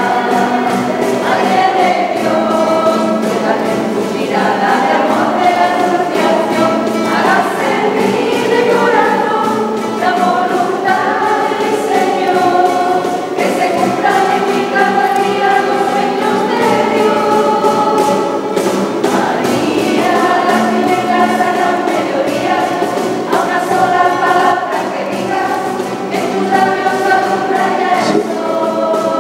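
Choir singing a hymn in sustained, held notes.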